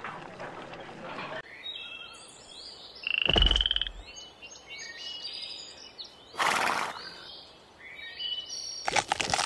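Woodland ambience of many short, high animal chirps and calls. One loud, buzzing high call stands out about three seconds in, and a brief rush of noise comes a little past six seconds.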